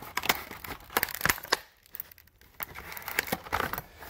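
Hard plastic blister packaging being pried and torn open, crackling and crinkling in irregular snaps, with a short pause about halfway.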